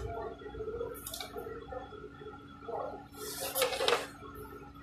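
Steady hum of commercial kitchen equipment, with short scraping and rustling as a cut pizza is moved on a wooden board. The longest and loudest scrape, about a second long, comes about three seconds in.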